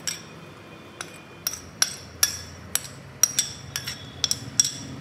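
Steel spoon tapping and scraping against a cut-glass bowl and the rim of a steel mixer-grinder jar, about a dozen sharp ringing clinks at an irregular pace, as fried onions are knocked off into the jar.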